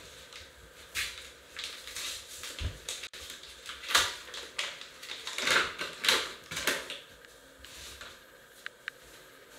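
Irregular clicks, crackles and rustles of something being handled close to the microphone, loudest about four and six seconds in.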